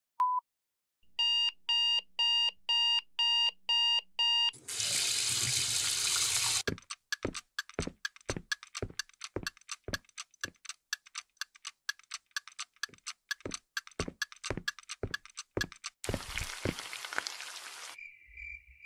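Cartoon sound effects: an alarm clock beeping in eight quick pulses, then a couple of seconds of hissing noise, then a clock ticking steadily about twice a second, ending in another short hiss of noise.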